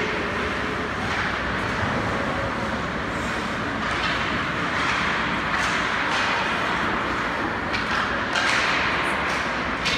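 Skate blades scraping across rink ice as a steady hiss that swells and fades, with a few sharp clacks near the end.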